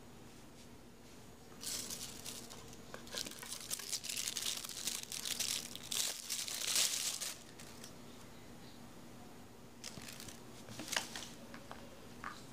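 Thin plastic packaging crinkling and rustling as hands handle and open it, in one long spell starting about two seconds in and lasting some five seconds, then a shorter spell near the end.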